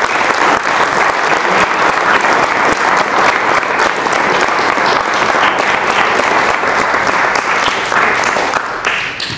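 Audience applauding, a loud, even clatter of clapping that dies away near the end.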